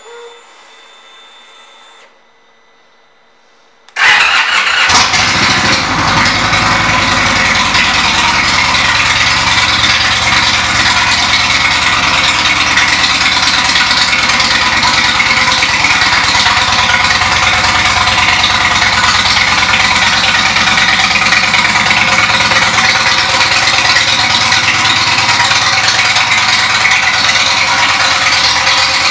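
2014 Indian Chief Vintage's Thunder Stroke 111 V-twin, fitted with Rinehart exhaust, starts up about four seconds in and then idles steadily and loudly.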